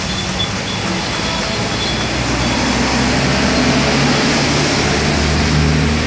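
Street traffic on a wet road: an even hiss of passing traffic, with a motor vehicle's low engine hum growing louder from about two seconds in.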